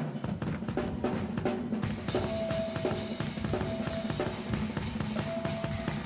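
Instrumental stretch of a pop-rock song: a full drum kit with bass drum and snare plays a steady beat under the band, and a short held note repeats every second or so from about two seconds in.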